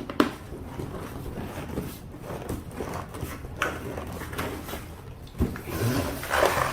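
Handling noise from unboxing a large RC truck: a few separate knocks and bumps, then rustling of the packaging near the end.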